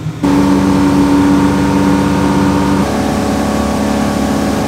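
Charter boat's engine running at speed, with the rush of wind and water. It comes in suddenly just after the start as a loud, steady drone, and its pitch drops slightly about three seconds in.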